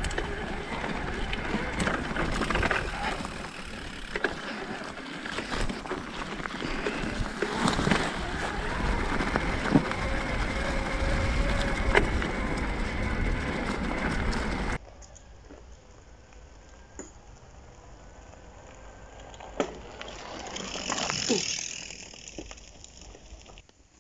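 Mountain bike riding off-road over bumpy meadow and then a gravel path: steady rolling noise with frequent short knocks from the bumps. About fifteen seconds in, it cuts off suddenly to a much quieter outdoor scene, with a few faint clicks and a brief rustling rise near the end.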